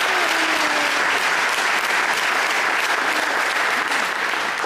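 Crowd applauding, dense steady clapping from many hands.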